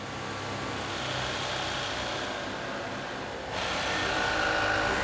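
Juki industrial sewing machine running: a steady mechanical whir over a low motor hum, growing louder and brighter about three and a half seconds in.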